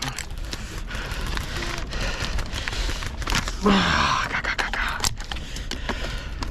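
Rustling and scraping of an airsoft player's gear and rifle handling, with scattered sharp clicks, typical of a magazine change. A short shout a little after three and a half seconds in.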